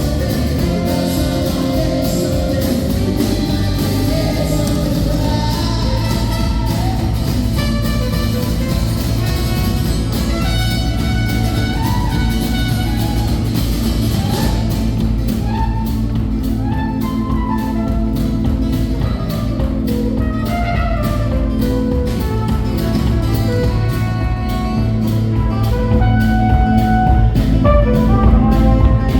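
Live band music with guitar, growing louder near the end.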